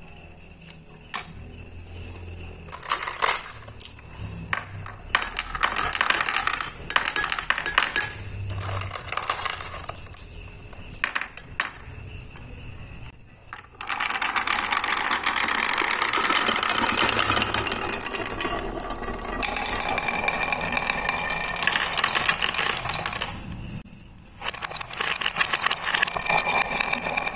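Purple balls rolling and clattering down a wooden marble run, knocking against its wooden dowel pegs and rails. Scattered knocks at first, then about halfway through many balls together make a dense, continuous rattle, which eases briefly near the end before picking up again.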